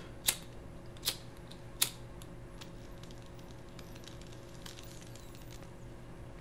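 Game controller buttons clicking: three sharp clicks in the first two seconds, then fainter, quicker clicks, over a steady low hum.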